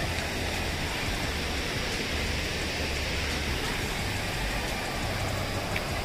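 Steady rushing-water noise from the cascades and pools, with a low rumble underneath.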